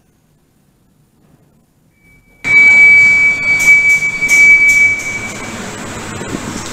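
Near silence for about two seconds, then, in an automatic car wash hall, sudden loud noise with a steady high-pitched tone that lasts about three seconds.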